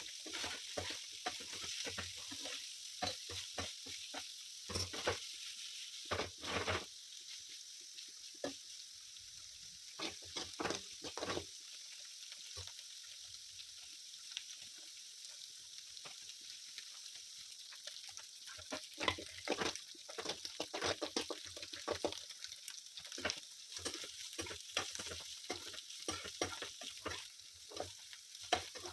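Food sizzling in a hot pan, a steady high hiss, while a spatula stirs and knocks against the pan in frequent irregular clatters.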